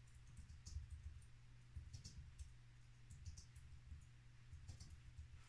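Near silence: room tone with a steady low hum, soft low pulses about every second and a half, and a few faint clicks.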